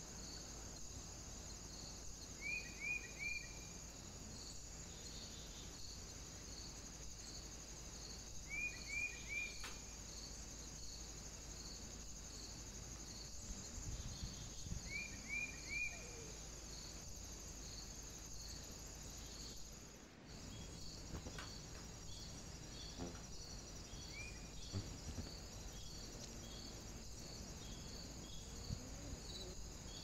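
Summer woodland ambience: a steady high-pitched trill with a regular repeating chirp. Three times, every several seconds, comes a short run of three quick chirps, then a single one; the sound briefly drops out about two-thirds of the way through.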